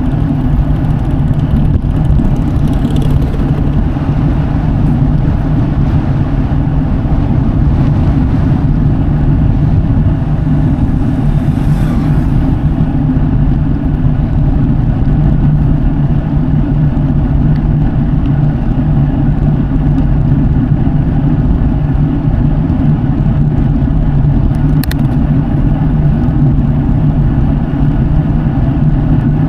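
Road bike tyres rolling on the road surface, a steady hum at cruising speed.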